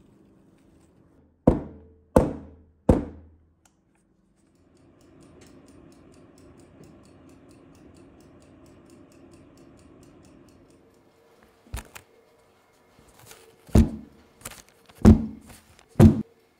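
Metal springform cake pan knocked down on a work surface three times in quick succession, then a faint steady hum, then a few more thumps near the end as the baked cake in its pan is handled with oven mitts.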